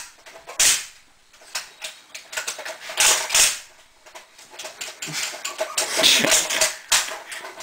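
Sharp plastic clicks and clacks from a toy gun being handled: one clack a little after the start, two close together about three seconds in, then a quick run of clicks and rattles near the end.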